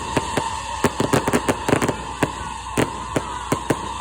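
Fireworks going off in a rapid, irregular string of sharp bangs and cracks, dense in the first two seconds, then thinning to single reports about every third of a second.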